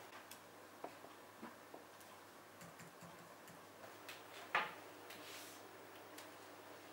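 Quiet room with scattered light clicks and taps at irregular times, from books and files being handled on a desk, and one sharper knock about four and a half seconds in.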